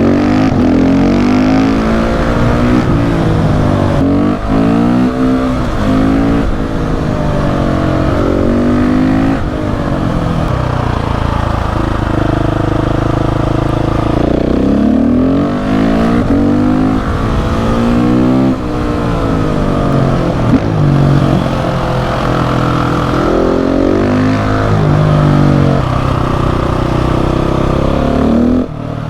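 KTM 690 SMC R's single-cylinder engine under hard acceleration, revs climbing repeatedly and dropping back at gear changes and throttle lifts, with a short steady stretch about halfway through.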